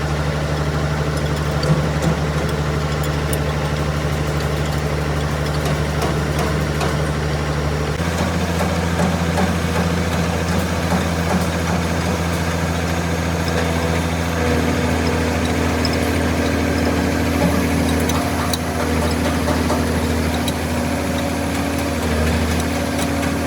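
Excavator engine running steadily, its low hum shifting in pitch about eight seconds in and again a few seconds later.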